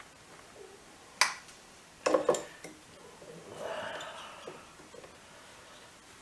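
A sharp click, then a quick cluster of two or three metallic clicks and clanks a second later: hand tools and wiring being handled while the old horn's ground wire is tracked down and undone on a motorcycle.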